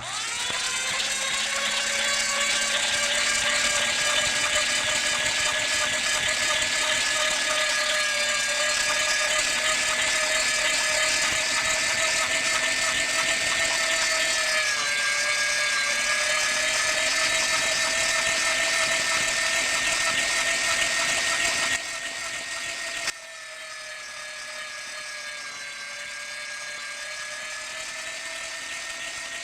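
Electric meat grinder motor switching on and spinning up to a steady high whine, its pitch sagging briefly a couple of times as if under load. About three-quarters of the way through it drops in level in two steps and runs on quieter.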